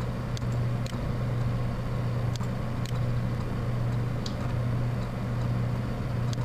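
Steady low hum with background hiss, with several faint, short clicks scattered through it, some in pairs about half a second apart.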